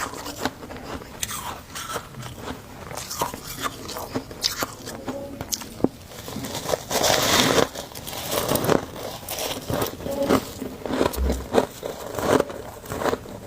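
Close-up biting and chewing of chunks of humidifier freezer frost: a dense run of crisp crunches, with a louder, longer stretch of crunching about seven seconds in.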